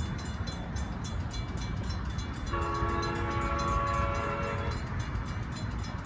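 Horn of an approaching train locomotive sounding one chord about two seconds long, starting about two and a half seconds in, over a steady low rumble.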